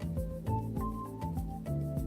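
Background music: an electronic track with a steady beat and short stepping melody notes.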